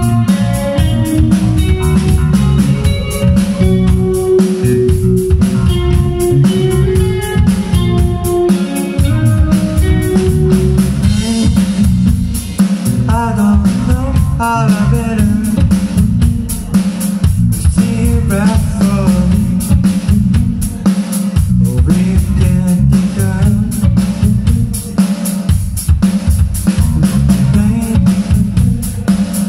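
Live rock band playing loudly with electric guitar, electric bass and drum kit. An instrumental passage gives way to a male lead vocal about twelve seconds in.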